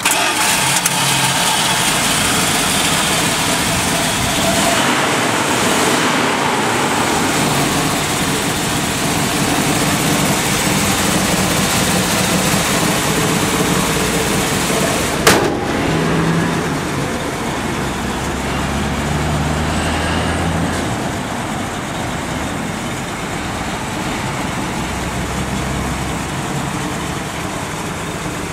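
1979 Dodge Li'l Red Express pickup's 360 V8 idling, with a sharp click about halfway through.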